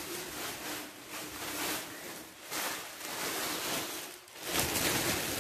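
Packing material being handled, rustling and crinkling in irregular surges, loudest near the end.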